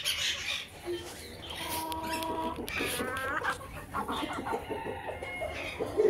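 Chickens clucking and calling, with one drawn-out, steady call about two seconds in, followed by shorter rising clucks.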